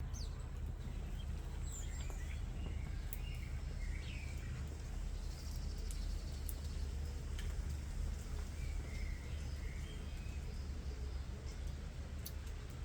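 Starlings calling in short scattered whistles and chirps, one falling whistle right at the start, over a steady low rumble, with a few sharp clicks.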